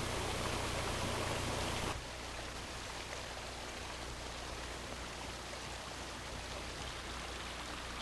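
Mountain stream water rushing over rocks as a steady wash of noise. About two seconds in it drops abruptly to a quieter, steady flow.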